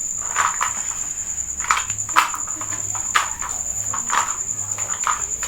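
Crickets trilling steadily at a high pitch. Brief soft scuffing noises come through about once a second, a few with a sharp click.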